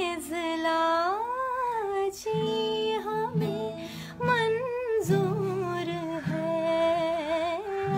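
A woman singing a slow, drawn-out Sinhala melody with long gliding vowels, accompanied by acoustic guitar chords that change every second or so.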